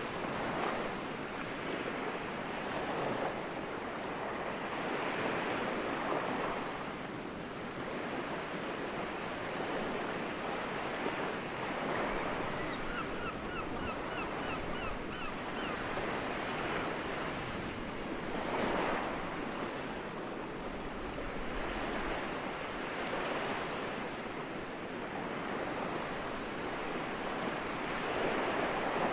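Small sea waves washing onto the shore in gentle swells every few seconds. About halfway through, a gull gives a short run of rapid, evenly spaced calls lasting about three seconds.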